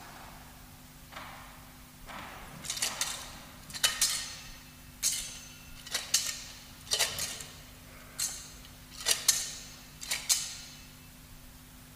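Altar bell shaken by hand in short bursts about a second apart, some in quick pairs, each ringing briefly and fading: the bell marking the blessing with the monstrance at Eucharistic Benediction.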